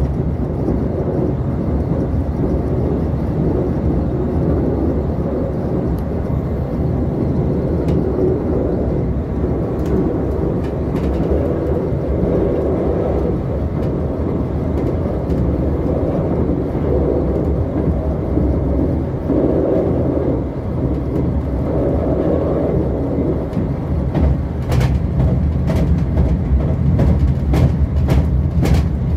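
Passenger train running at speed, heard from inside the carriage: a steady low rumble of wheels on rails and running gear, with a few sharp clicks near the end.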